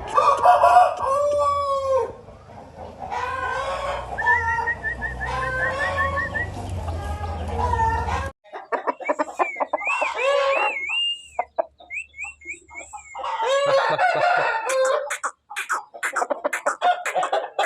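Aseel chickens calling, with crowing and clucking. About eight seconds in, a low hum underneath stops abruptly, and high, quick chirping glides follow before more crowing.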